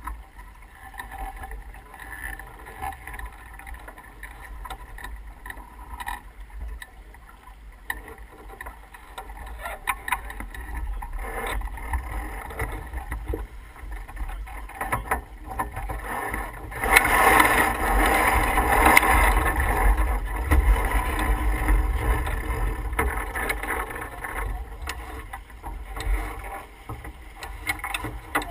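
Wind buffeting the microphone and water rushing along the hull of an S2 9.1 sailboat under way, with scattered knocks from the deck. A louder rush lasts several seconds a little past the middle.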